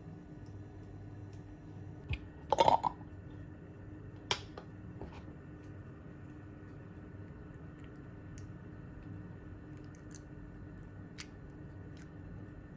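A few short clicks and taps, the loudest a quick cluster of them about two and a half seconds in, over a steady faint hum.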